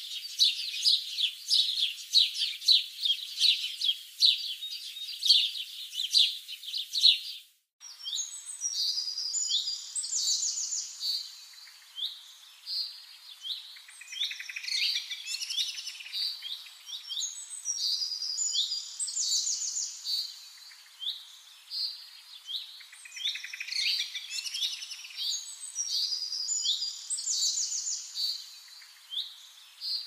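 Songbirds singing: rapid, high chirping trills at first, then after a short break about eight seconds in, a different chorus of repeated whistled phrases, some overlapping.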